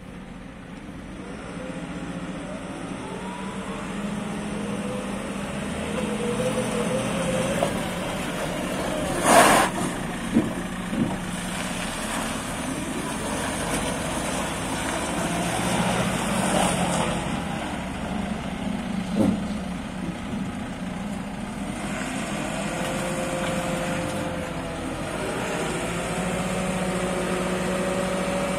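JCB 540-170 telehandler's diesel engine running, its pitch rising and falling as the hydraulics lower the stabilisers and raise the boom. A short, sharp hiss about nine seconds in, with a few knocks just after it and another about nineteen seconds in.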